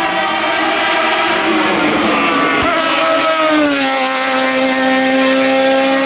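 Race car engine at high revs as the car approaches at speed, its note dropping in pitch about three and a half seconds in as it passes close by and pulls away.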